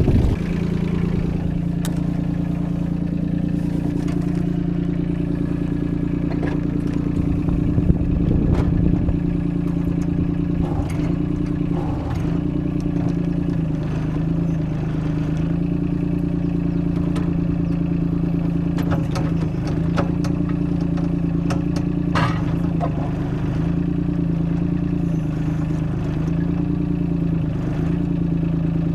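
Yanmar three-cylinder diesel of a 2004 Kobelco SK13SR mini excavator running at a steady speed, with scattered clanks and clicks from the machine.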